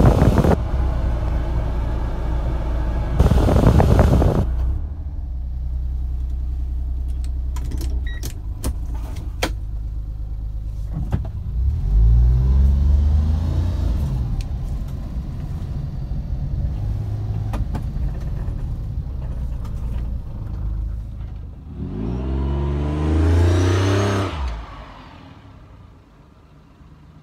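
1995 Honda Acty van's small three-cylinder engine idling, with two short rushes of noise in the first few seconds. The engine then revs up about eleven seconds in and again more loudly about twenty-two seconds in as the van drives off, and the sound fades near the end.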